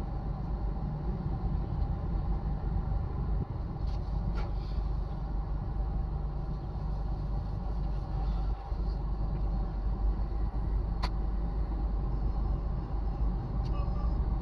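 Vehicle engine running in slow road traffic: a steady low rumble with an even engine hum, broken by a few short clicks.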